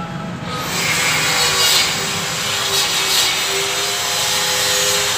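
Paper banknote rustling and rubbing as it is folded and creased by hand: a loud, scratchy noise that swells about half a second in, with a few sharper crackles.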